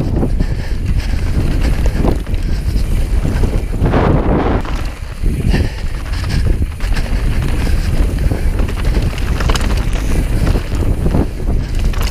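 Wind buffeting the microphone as a mountain bike descends a rough dirt trail at speed, a loud steady rumble, with scattered knocks and rattles of the bike over the rough ground.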